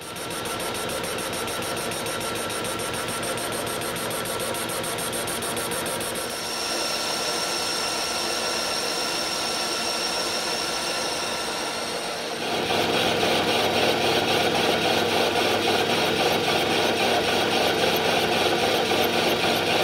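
Schaublin 102VM lathe running under power while a carbide insert tool turns a metal workpiece: a steady machine hum with the hiss of the cut. About two-thirds of the way through the sound changes and grows louder and noisier.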